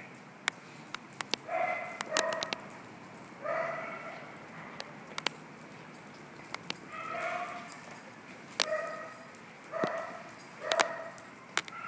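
Dog barking in short single barks, about eight spread unevenly, with sharp clicks scattered in between.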